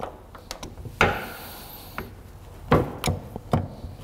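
Knocks and clicks of a hand tool prying rubber spark plug tube grommets out of a Honda J-series valve cover on a metal workbench. Light clicks early on, then four sharper knocks in the second half.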